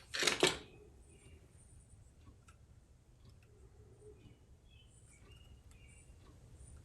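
A brief loud rattle of small metal parts being handled in the jukebox's popularity meter mechanism, ending about half a second in. After that, a low steady hum with a few faint high chirps.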